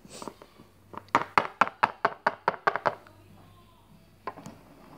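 A small plastic toy pet figure is tapped on a tabletop in a quick run of about a dozen light knocks in under two seconds, hopped along as if walking. One more knock comes near the end.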